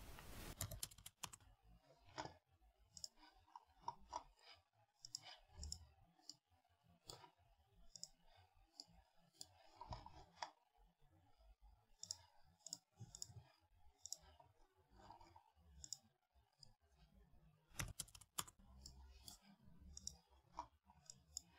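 Faint computer mouse clicks at irregular intervals, with near silence between them.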